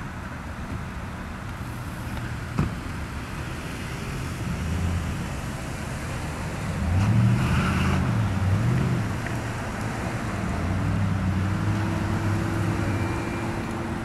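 Motor vehicle engine running over a steady outdoor rumble, its pitch rising and falling and loudest about halfway through. A sharp click comes in about two and a half seconds in, and a steady low hum joins in the second half.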